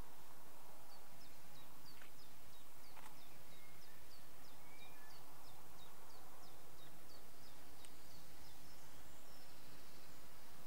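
A bird singing a quick run of repeated high, downward-slurred notes, about three a second, for several seconds, over a steady background hiss.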